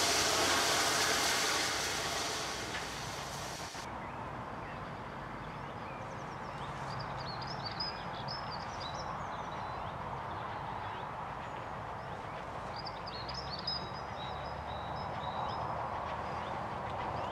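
A steam locomotive standing at a platform, hissing steam, for the first few seconds. After that, birds singing over a quieter low rumble from a steam train in the distance, which grows a little louder near the end.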